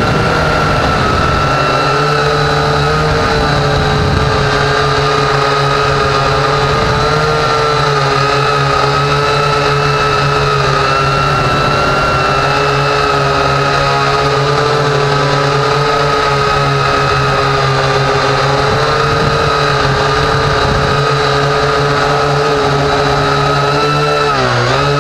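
Syma X8HG quadcopter's motors and propellers, picked up by its own onboard camera: a loud, steady whine while it hovers. Near the end the pitch dips briefly and climbs back as the throttle changes.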